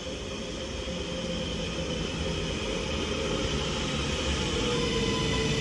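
A three-car Northern Class 331 electric multiple unit running into the platform, growing steadily louder as it approaches. Its running noise carries a steady whine whose pitch sinks slightly near the end as the train slows.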